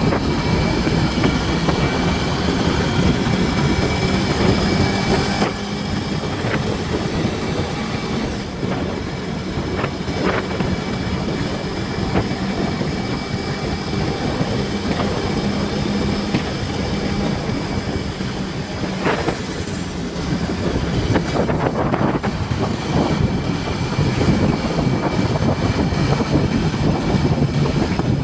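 Motorcycle riding at speed on a highway: wind rushing over the microphone mixed with the engine running steadily.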